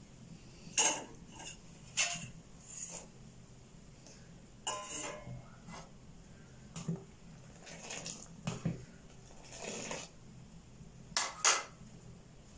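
Metal kitchen utensils and dishes clinking and clattering now and then, about a dozen sharp knocks at irregular intervals, loudest near the start and again near the end.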